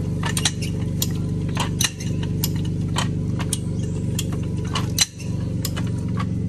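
A motor running steadily, overlaid by irregular sharp metallic clicks and clinks, two or three a second.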